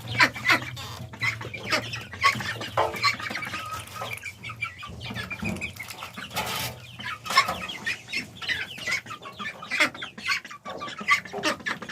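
Chickens clucking in short, repeated calls while feeding, with a brief rustle about six and a half seconds in.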